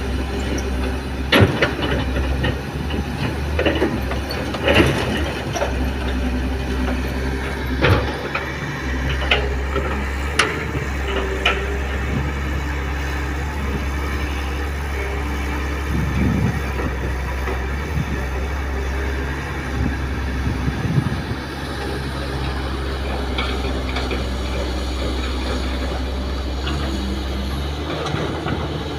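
Kobelco SK200 hydraulic excavator's diesel engine running steadily under load as it digs and swings, with sharp clanks and knocks of the bucket and rocks, mostly in the first dozen seconds.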